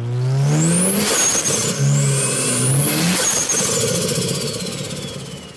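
Turbocharged car accelerating hard, heard from inside the cabin. The engine note climbs, drops at a gear change about a second in, and climbs again. After about three seconds it falls away, and a high turbo whistle glides down as the sound fades.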